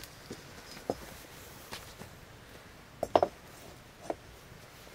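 Light clinks and knocks of metal cookware being handled over a wood-fire hearth, a cup tapping a pan and the pan moved on the fire, scattered every second or so; the loudest is a double clink about three seconds in.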